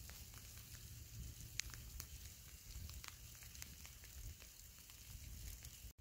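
Faint outdoor night background: a low rumble with a thin hiss and scattered small clicks and crackles, cutting off suddenly near the end.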